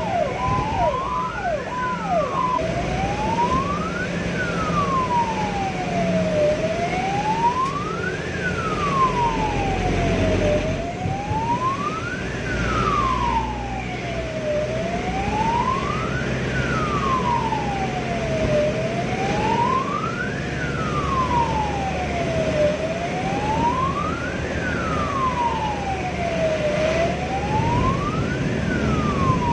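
Ambulance siren heard from inside the moving ambulance. A quick choppy pattern in the first couple of seconds gives way to a slow wail that rises and falls about every four seconds. Engine and road noise run underneath.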